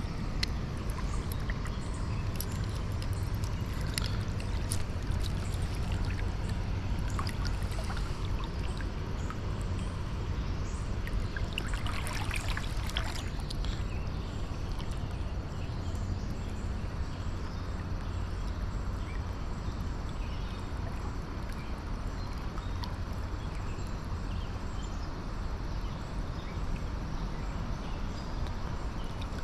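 Steady rush of flowing river water, with scattered small splashes and trickles from a hand moving in the current.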